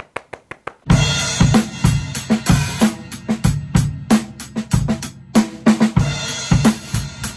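Intro music with a driving drum-kit beat of kick, snare and cymbals, preceded in its first second by a quick run of sharp clicks. The music drops out briefly about five seconds in, then picks up again.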